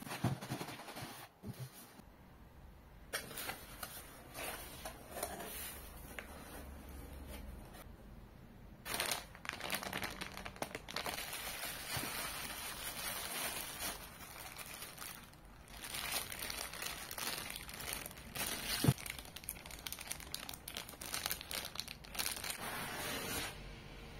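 Cardboard box flaps and a clear plastic bag wrapped around a camera being handled: irregular rustling and crinkling, sparse for the first several seconds and near-continuous after that. One sharp knock about three-quarters of the way through.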